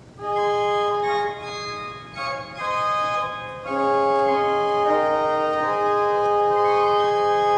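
A single 2-foot Fifteenth rank of pipes on a pipe organ, playing sustained chords that change every second or so and then hold a long chord. It sounds from a freshly restored pipe chest that is speaking again.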